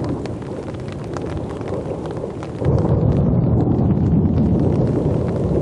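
Thunder rumbling right after a nearby lightning flash, with a crackling edge, stepping up louder about two and a half seconds in.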